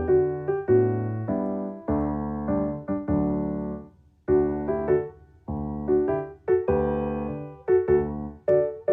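Background piano music: gentle chords and melody notes struck one after another, with a brief pause a little after the midpoint.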